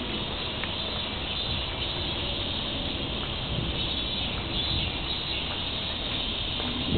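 Steady outdoor background hiss with faint insect chirring, and a few faint ticks.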